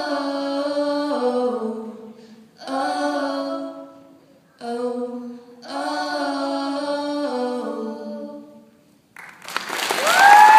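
Two female voices singing slow phrases in harmony, four phrases with short pauses between them. Near the end the song stops and the audience breaks into loud applause with whistling.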